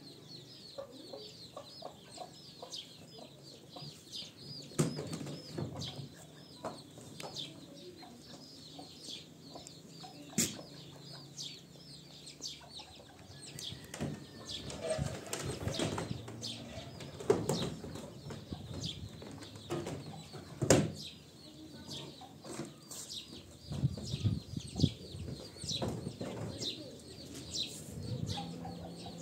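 Chicks peeping in a fast run of short high chirps, with rustling and several sharp knocks as laundry is shaken out, hung on a line and handled at a top-loading washing machine.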